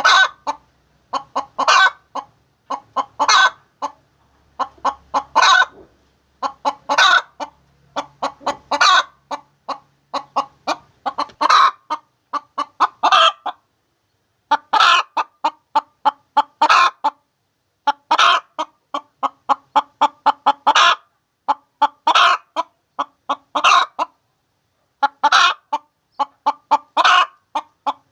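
Hen cackling the egg song: runs of short clucks, each building to a louder drawn-out squawk, repeated every couple of seconds with a couple of brief pauses. This is the cackle a hen gives around laying an egg.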